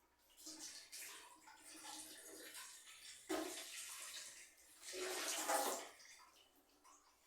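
Water running from a tap and splashing, in uneven surges, typical of rinsing things in a sink.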